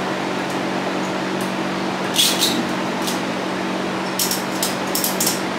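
Steady machine hum with a few short, sharp clicks and taps on top, most of them bunched together from about four seconds in.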